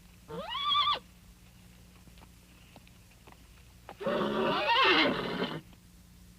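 Horse whinnying twice in a vintage sound-effect recording: first a short call rising in pitch, then, about four seconds in, a longer, louder whinny with a wavering pitch.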